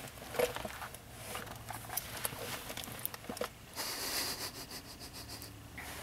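Quiet car cabin with scattered small clicks and rustles of handling, and a steady high hiss for about two seconds near the end.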